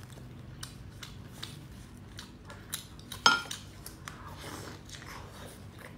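Quiet close-up eating sounds: small mouth clicks and lip smacks while eating soft stuffed pastry, with one sharper click about three seconds in.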